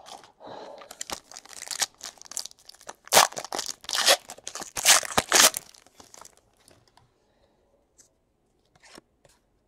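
A 2017 Panini Elite Extra Edition baseball card pack wrapper being torn open and crinkled by hand, a run of rips and rustles that is loudest in the middle and dies away after about six seconds.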